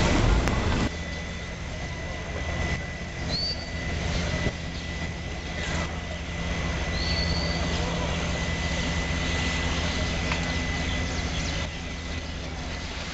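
A loud rush of noise cuts off about a second in, giving way to an engine running steadily in a low drone. Over the drone sit a constant thin high tone, a few faint cracks and two short rising chirps.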